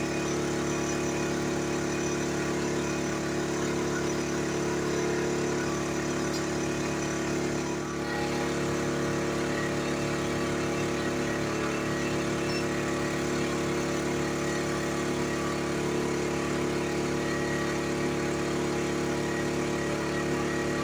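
EcoFlow Smart Generator 3000 dual-fuel generator running steadily on propane under the load of charging a power station, a constant even engine hum.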